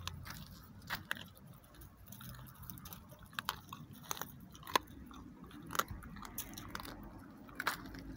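Dog chewing and crunching on a bone, with irregular sharp cracks about two a second.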